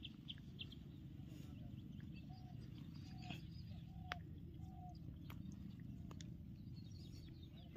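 Faint outdoor quiet with a steady low hum. Four short, soft animal calls come in the middle, with a few small clicks.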